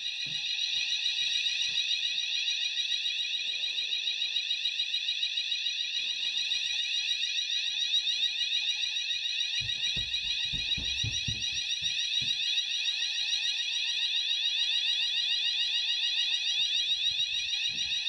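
Sounder of a Notifier fire alarm system in full alarm, a continuous rapidly warbling high tone, set off by a smoke detector tested with aerosol test smoke. A few low thumps sound about halfway through.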